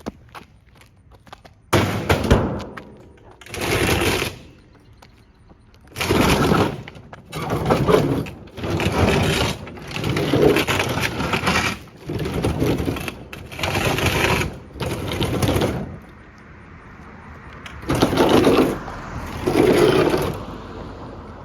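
A Kenmore Elite refrigerator being smashed: about ten loud crashing blows, each about a second long, with breaking and rattling.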